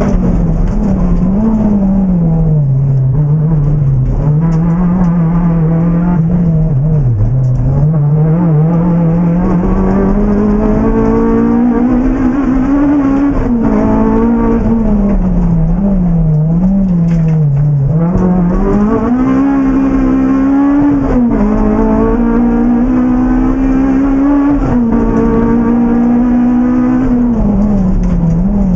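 Honda Civic Type R's 2.0-litre K20A four-cylinder engine heard from inside the cabin, revving hard at rally pace. Its pitch rises and falls over and over with gear changes and lifts.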